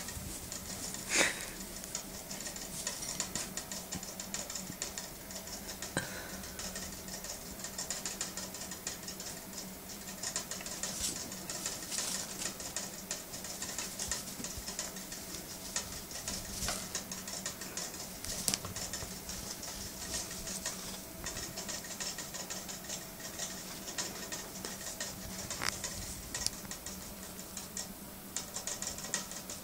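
Pet rats digging and scrabbling through wood-shaving bedding: a steady crackly patter of rustling shavings, with a sharper knock about a second in.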